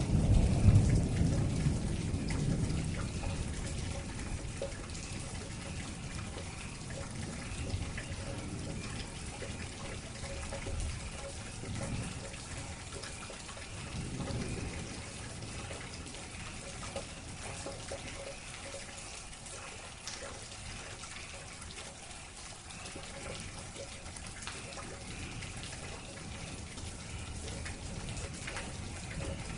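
Steady rain falling, with scattered drips. A low rumble of thunder fades out over the first few seconds.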